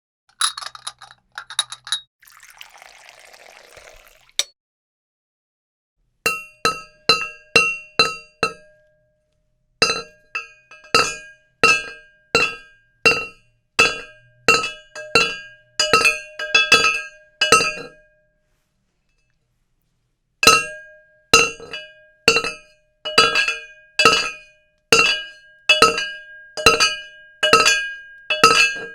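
A short rattle and a brief hiss, then three runs of sharp clinks, each ringing briefly at the same pitches, about two a second.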